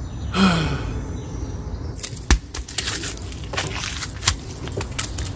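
A person's short cry, falling in pitch, then an irregular run of sharp knocks, the loudest just after two seconds in and again a little after four seconds in.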